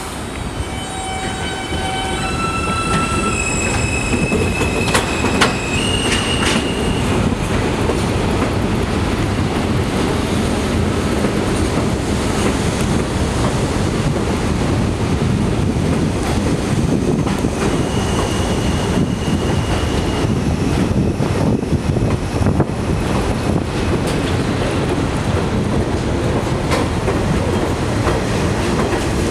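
Vintage New York City subway cars roll along an elevated station track with a steady, loud rumble and wheels clicking over rail joints. In the first several seconds the wheels give a series of high squeals that change pitch, and a shorter squeal comes again a little past halfway.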